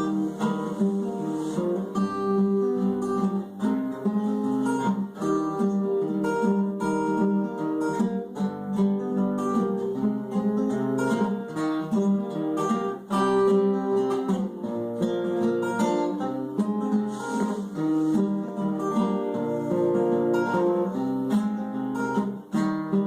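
Acoustic guitar playing an instrumental break in a country song, strummed chords and picked notes with no singing.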